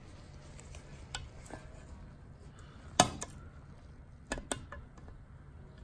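Metal clicks and clinks from a lever-type valve spring compressor bearing down on a valve spring retainer to free the valve keepers, with one sharp click about three seconds in and two more in quick succession a second later.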